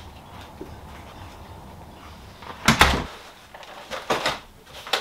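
A door thumps shut about three seconds in, cutting off a low wind rumble. A few lighter knocks follow as plastic seed-starting trays are set down on a wooden table.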